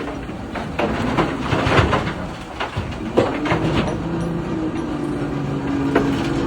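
Ore clattering and knocking as it drops from an electric mining excavator's bucket into a railway ore wagon, a dense run of impacts in the first half. A steady machine hum takes over from about three seconds in, with one more knock near the end.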